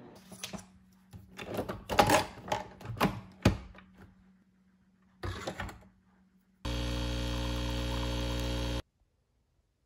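Nespresso capsule coffee machine being loaded: a string of clicks and knocks as the capsule goes in and the lever is closed. Then the machine's pump buzzes loudly and steadily for about two seconds as the coffee pours, and stops abruptly.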